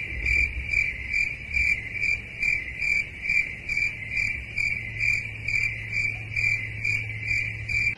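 Cricket chirping sound effect: a steady, even chirp repeating about three times a second, cut in and out sharply with the clip.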